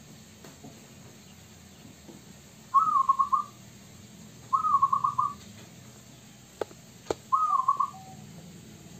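Zebra dove (perkutut) calling three times, each phrase a rising coo that breaks into a quick run of short notes. Two sharp clicks come between the second and third calls.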